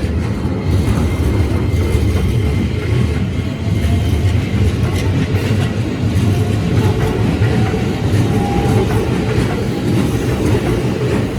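Keikyu Line electric train passing over the level crossing: a loud, steady rumble of wheels on rail.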